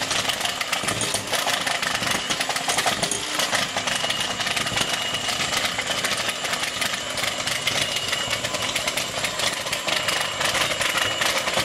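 Electric hand mixer running steadily, its beaters whirring and rattling through creamed cream cheese and sugar in a glass bowl.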